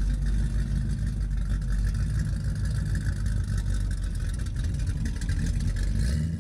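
An engine running steadily at idle, a low, even hum.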